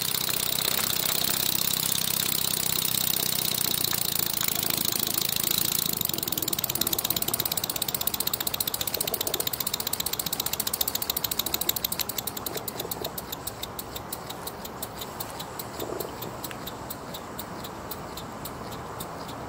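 Chiltern model horizontal mill steam engine running on just a crack of steam while still warming up: a steady hiss of steam with a rapid, even beat from the engine, which becomes quieter about two-thirds of the way through.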